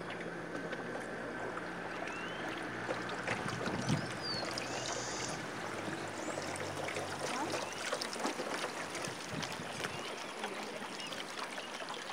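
Water splashing and rushing along the hull of a pirogue under way, with a low outboard motor hum that fades out about seven and a half seconds in.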